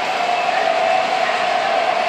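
O-gauge model diesel locomotive pulling freight cars on three-rail track, with a steady running noise and a constant whine.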